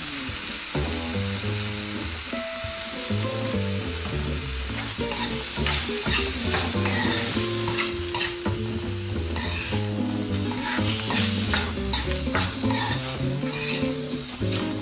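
Chopped onion and tomato frying in oil in a pan, sizzling steadily while being stirred, with repeated short scraping strokes that come thicker from about halfway through.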